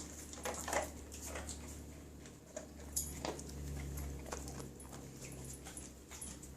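A dog chewing and mouthing, making a scattered run of soft clicks and smacks. A faint low hum rises about halfway through and fades a second later.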